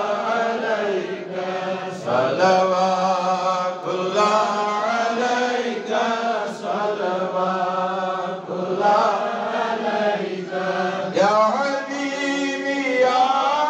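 A man's solo voice chanting a religious recitation in long, melodic held phrases with short pauses for breath, amplified through a microphone, over a steady low hum.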